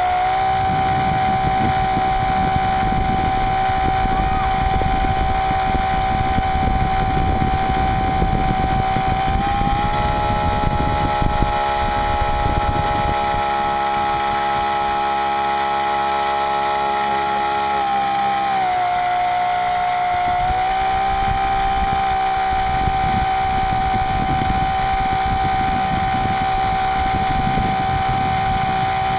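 Model RC boat's motor, heard close from the deck, running with a steady high whine that steps up in pitch about a third of the way in, drops briefly about two-thirds in, then rises again as the throttle changes. A rough rushing water noise runs underneath.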